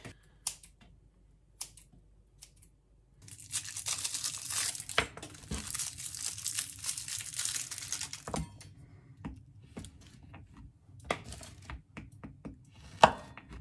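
Twist wrappers of Dumle toffees crinkling and crackling as the sweets are unwrapped one after another, in a dense stretch from a few seconds in. It is followed by scattered clicks and taps of a knife cutting the toffees on a cutting board, the loudest click near the end.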